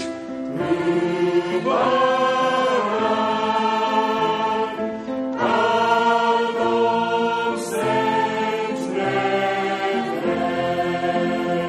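Church choir singing a worship song arranged as a round, in long held phrases with a new phrase starting about every five seconds.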